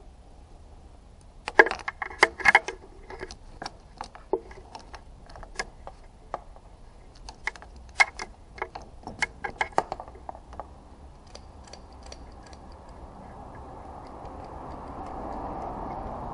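Metal clicks and clinks of a spring-band hose clamp being worked off a radiator hose with a cable-operated hose clamp pliers: a quick cluster of sharp clicks, then scattered lighter ticks. Near the end a low rushing noise builds up steadily.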